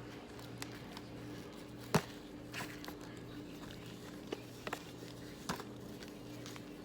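Scattered crisp cracks and clicks from Argo cornstarch chunks being crunched, the loudest about two seconds in and a few smaller ones later, over a steady low electrical hum.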